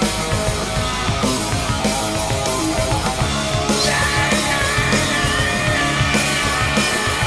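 Background rock music with a steady drum beat, joined by a held high note about halfway through.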